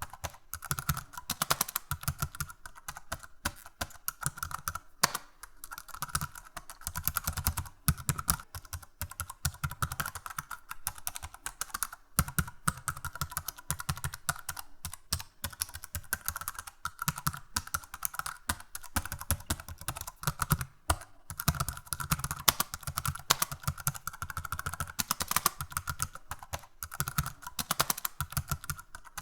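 Computer keyboard being typed on continuously: rapid, irregular key clicks in fast runs, with brief pauses now and then.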